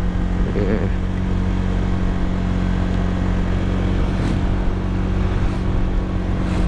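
Motor scooter engine running steadily at cruising speed, heard from the rider's helmet camera with wind and road noise over it; vehicles pass going the other way.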